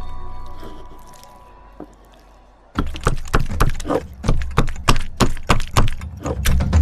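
A wooden rolling pin pounding starch-coated fish meat flat on a stone counter: quick, irregular knocks, three or four a second, beginning about three seconds in after a fading music tone.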